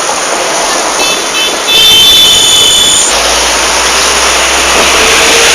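A bus's 'telolet' musical horn sounding a cluster of high tones for about a second and a half, starting faintly and then coming in loud, over steady loud street and traffic noise. A low vehicle rumble continues after the horn stops.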